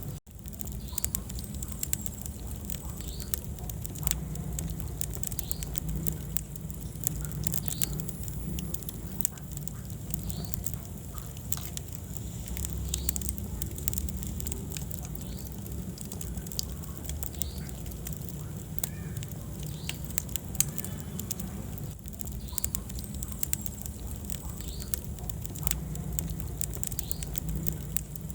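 Wood fire burning in a fireplace: many sharp crackles and pops over a low, steady rumble of flame.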